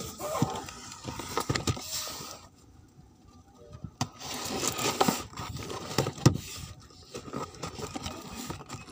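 Hands handling a large cardboard box: irregular scraping, rustling and light knocks as packing tape is picked at, with a sharp knock about six seconds in.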